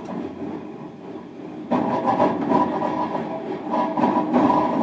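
Running noise inside a moving JR Kyushu 305 series train, heard from a motor car with a Toshiba permanent-magnet-motor VVVF drive: wheel and rail rumble. Under that is a cluster of steady humming tones that comes in suddenly a little under two seconds in, and everything grows louder from there.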